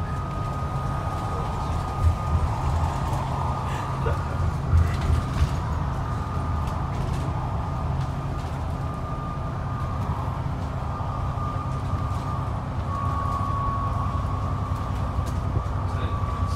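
Steady low rumble of a moving vehicle heard from inside its cabin, with a faint constant whine and a few short knocks about two and five seconds in.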